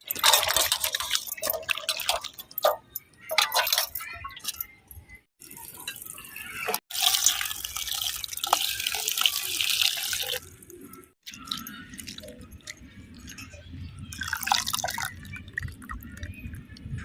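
Water splashing, pouring and dripping, with scattered clinks and knocks, broken by a few abrupt cuts; a low steady hum near the end.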